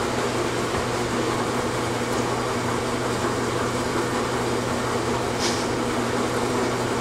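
Steady hum and whoosh of a running fan, with a light click about five and a half seconds in.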